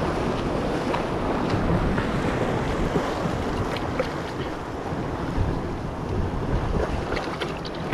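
Wind buffeting the microphone over the wash of sea waves on the shore: a steady rushing noise, with a few faint clicks in the second half.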